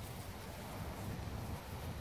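Wind buffeting the microphone: a low, unsteady rumble with faint hiss.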